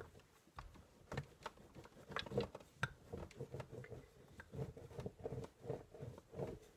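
Wooden rolling pin rolling out a slab of clay over wooden guide strips: faint, irregular clicks and soft knocks as the pin rolls and presses.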